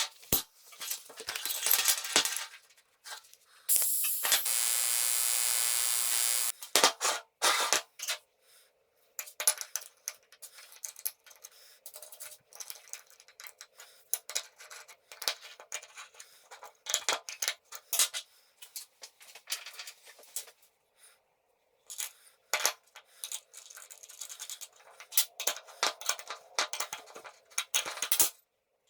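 Metal workshop parts and tools clinking and tapping as they are handled, with about three seconds of a steady power-tool run starting about four seconds in.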